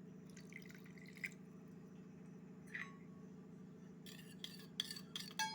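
Water being poured and dripping into a pot of green mint chutney, with a few small drips early on and a quick run of splashes and clinks in the last second and a half, over a faint steady low hum.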